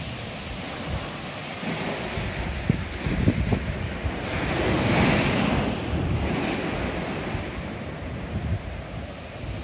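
Sea waves breaking and washing on the beach, one surge swelling and falling away about five seconds in, with wind buffeting the microphone.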